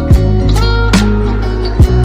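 Music with sustained bass and chords and a steady beat.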